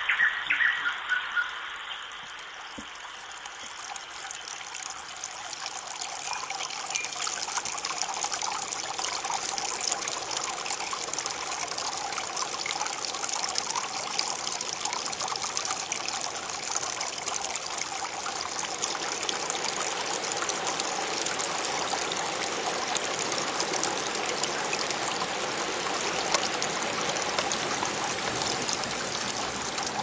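Small shallow stream trickling and burbling steadily. It swells in over the first few seconds. A few short high-pitched calls sound in the first second or so.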